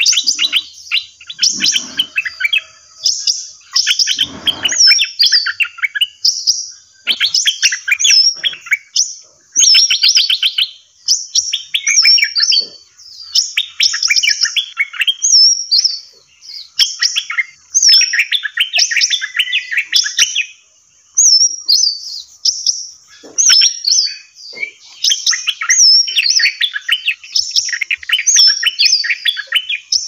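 Several pet songbirds of different kinds singing at once: rapid chirps and trills overlapping almost without a break, with a short, high, hooked whistle repeated over and over.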